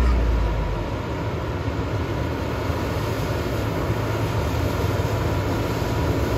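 John Deere T660 combine harvester running steadily as it works through a barley field: a constant low engine and machinery drone.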